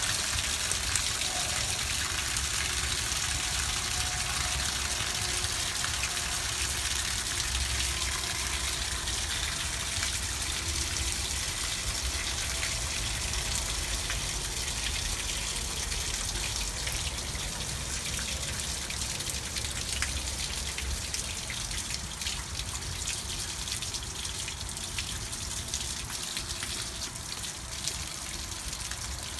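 Water gushing from the drain-plug opening of a 6-gallon RV water heater and splashing onto gravel, the pressure relief valve open. The flow eases steadily toward a trickle as the tank empties.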